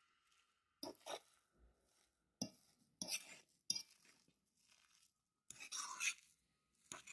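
Potato masher worked through soft boiled potatoes in a pot: about seven irregular squishing strokes, some with a clink of metal against the pot.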